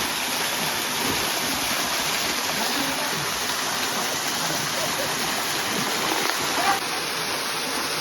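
Steady rush of flowing water from a mountain stream, with faint voices underneath.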